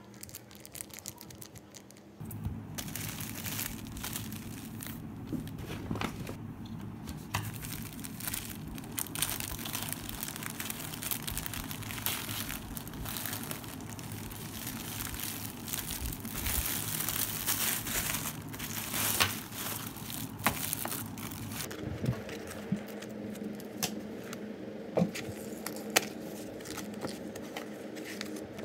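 A plastic mailer bag crinkling and crackling as it is handled and pulled open by hand, with many small sharp crackles. Near the end it gives way to lighter rustling of paper and packaging.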